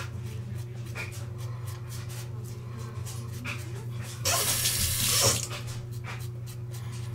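Vikings Blade double-edge safety razor scraping through lathered stubble in short strokes, with a steady low hum underneath. About four seconds in, a tap runs for about a second as the blade is rinsed.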